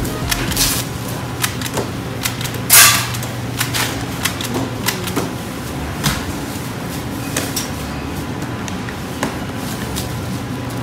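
Scattered clicks and clatter of plastic clamshell containers being handled and snapped shut as rotisserie chickens are packed, with one louder clatter about three seconds in, over a steady low hum of kitchen equipment.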